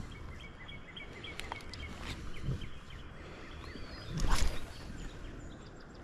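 Faint birds chirping over a steady low outdoor rumble, with one short whoosh about four seconds in as a spinning rod is cast.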